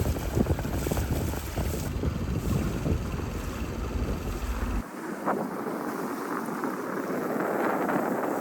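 Wind buffeting the microphone aboard a sailboat under way. About five seconds in, the deep rumble cuts off abruptly, leaving a steady hiss of wind and water.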